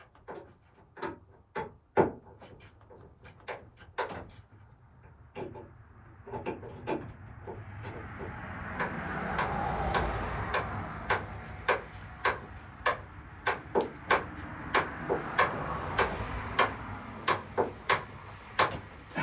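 Hand work on rusty metal hardware: scattered sharp clicks and knocks, then a rough scraping noise that builds over several seconds and carries on, with a sharp click about every half second or so.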